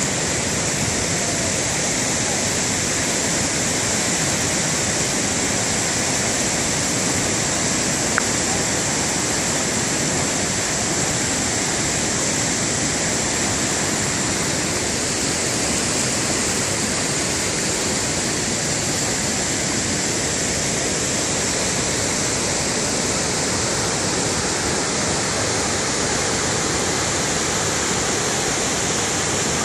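Fast-flowing river rapids and a wide waterfall rushing steadily and evenly, with one brief click about eight seconds in.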